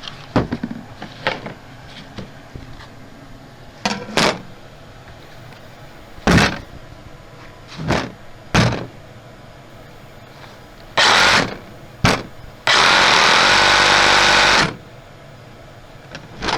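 Hands-on repair work on a suitcase's wheels: a series of separate knocks, clicks and short scraping bursts, then a loud, steady noise lasting about two seconds near the end.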